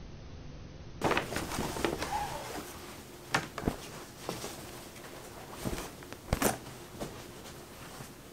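Newly bought clothes being unpacked and handled: fabric rustling, with a few sharp clicks and knocks from the plastic hangers and the paper shopping bags. This starts about a second in, after a little quiet room tone.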